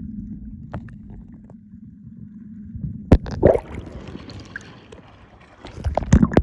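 Muffled water sloshing against the phone's microphone during swimming, with a sharp knock about three seconds in, a hissing splash after it, and several more knocks near the end.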